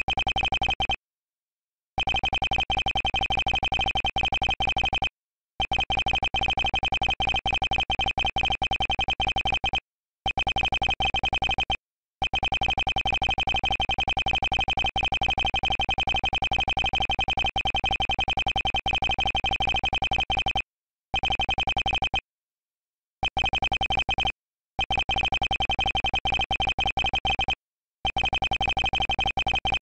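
Dialogue text-scroll blips: a rapid string of short electronic beeps, one for each letter as text types onto the screen. The beeps come in runs of a few seconds broken by silent pauses of about a second, where the typing stops between phrases.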